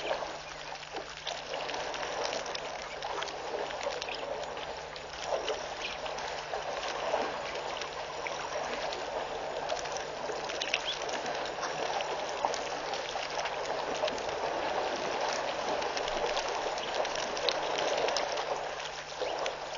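Herd of African elephants drinking at a waterhole: continuous splashing, trickling and pouring of water as they draw it up in their trunks and let it run out, with many small splashes and drips.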